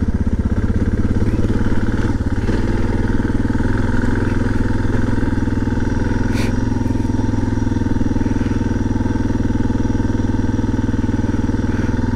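Suzuki DR650's single-cylinder engine running steadily while the motorcycle is ridden. Its note shifts slightly about two and a half seconds in, and a single sharp click comes about halfway through.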